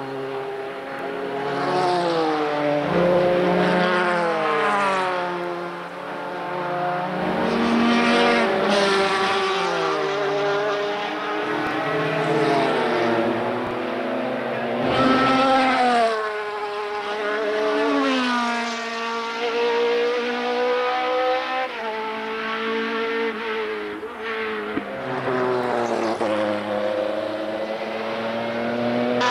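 Group C sports-prototype race cars passing one after another through a sequence of bends, engines overlapping as they drop in pitch on the approach and rise again as they accelerate away.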